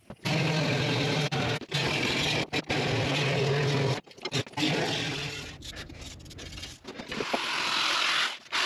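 Power tools cutting sheet steel. A hand-held cutting tool runs steadily along a rusty truck floor pan for about four seconds and stops. Near the end, an electric sheet-metal shear chews with a loud grating rasp through a steel patch panel.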